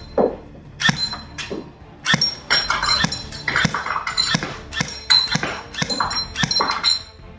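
A run of sharp plastic clicks and clacks, about one to two a second and irregular, some with a short metallic ring, from a Tokyo Marui H&K USP electric airsoft pistol being handled.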